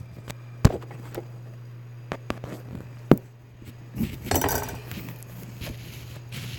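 Kitchen handling sounds: a few sharp knocks and clicks on the countertop, and about four seconds in a short crinkling of aluminium foil wrapped around a cooked steak, over a steady low hum.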